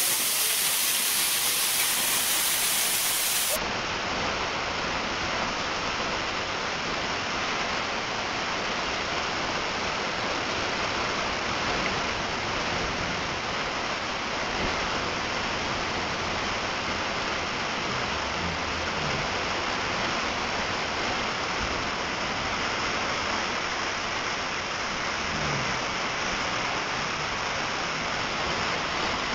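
Small waterfall pouring onto rocks: a steady rushing hiss of falling and splashing water. The sound turns slightly duller and quieter about three and a half seconds in.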